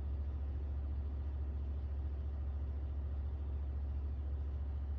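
A steady low hum with no other distinct sounds.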